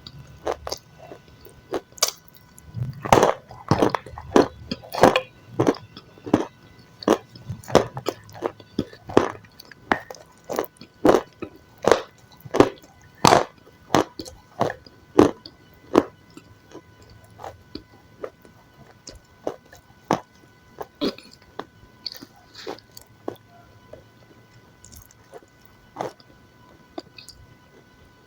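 Close-miked eating of crunchy food: a run of crisp bites and chews, about one or two a second, louder in the first half and softer later.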